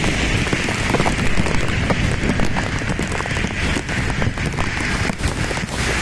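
Heavy downpour: a dense, steady hiss of rain with many sharp ticks of drops, over a low rumble of travel on a wet road.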